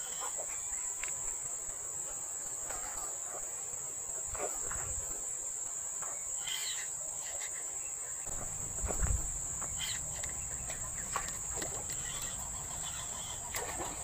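Insects chirring in one steady, high-pitched drone, with scattered small clicks and a dull thump about nine seconds in.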